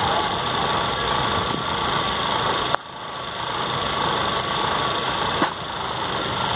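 Two sharp knocks about two and a half seconds apart over a steady rushing background noise; the later knock fits a cricket bat striking the ball.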